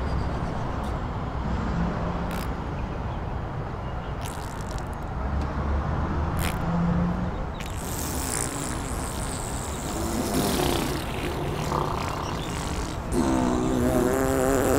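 Steady rumble of road traffic, then about thirteen seconds in a long, wavering fart starts and runs on to the end.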